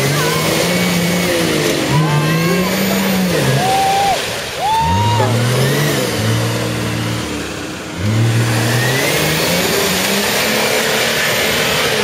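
Nissan Patrol GR's engine revving hard in about four surges, each rising then falling in pitch, with its tyres churning through deep mud.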